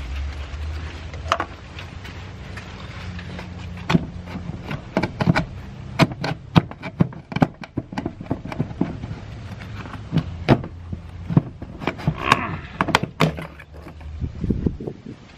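Irregular clicks, knocks and scrapes of a Chevy 1500's fuel pump module being worked loose by gloved hands and pulled up out of the fuel tank opening. A low steady hum runs underneath and fades near the end.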